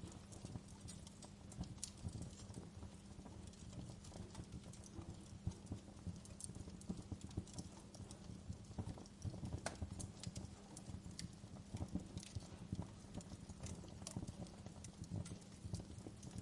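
Wood fire in a fireplace crackling: irregular sharp pops and snaps over a steady low rumble of the burning logs.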